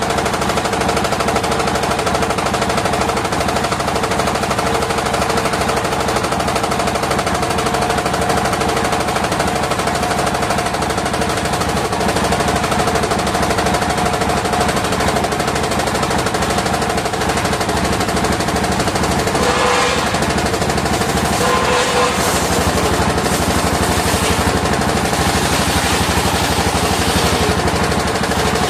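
An engine-driven circular sawmill running with a fast, steady chugging beat. A harsher, higher sound joins in about two-thirds of the way through, typical of the blade cutting into waru wood.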